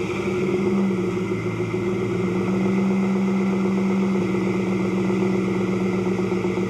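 A vehicle engine running steadily at idle, holding one even pitch without revving.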